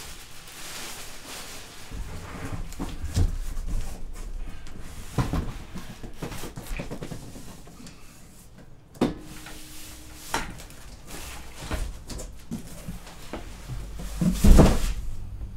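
Cardboard shipping box and bubble-wrap packing being handled and moved: rustling and crinkling with scattered knocks and bumps, a sharp knock about nine seconds in, and the loudest thump near the end.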